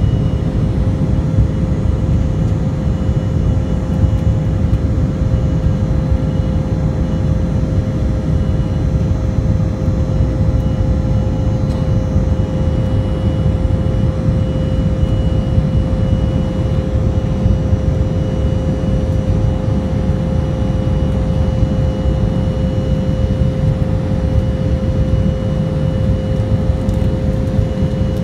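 Cabin noise of an Embraer 175LR jet climbing after takeoff: a steady low rumble of airflow and its wing-mounted GE CF34-8E turbofan engines, with a steady mid-pitched hum over it.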